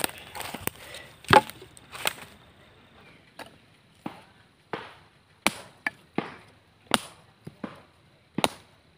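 Machete chopping small sticks of wood: a run of about a dozen sharp, separate strikes at uneven spacing, the loudest about a second and a half in.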